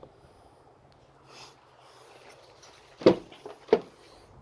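Two short, sharp knocks about half a second apart, near the end, over faint background hiss.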